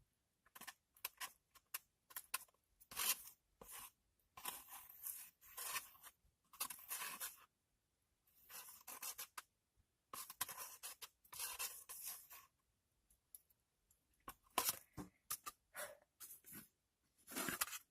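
Faint eating sounds in short, irregular scraping bursts with brief pauses between them: a utensil scraping up the last of the fried rice from its container.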